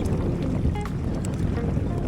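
Wind buffeting the microphone on a boat on open water: a steady, rumbling rush with water noise beneath.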